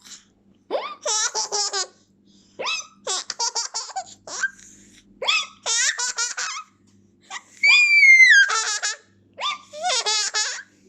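A baby laughing in about five separate bouts. Each bout is a quick run of high-pitched 'ha' pulses, with short pauses between bouts; the loudest comes a little before two-thirds of the way through.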